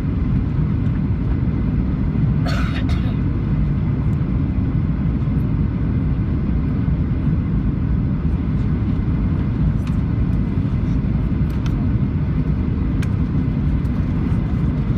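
Boeing 737-700 cabin noise in flight: a steady, even low roar of engines and airflow. A brief higher sound cuts in about two and a half seconds in.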